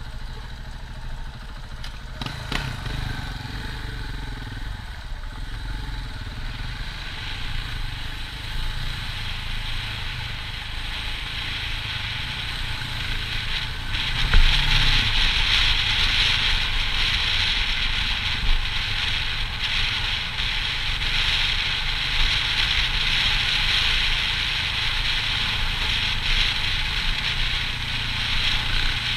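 KTM 690 single-cylinder dirt bike being ridden along a lane, its engine a steady low running note under wind rush on the helmet microphone. The wind rush grows louder about halfway through as the bike picks up speed.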